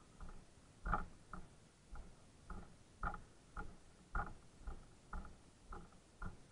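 Footsteps walking on a packed dirt trail, an even pace of about two steps a second.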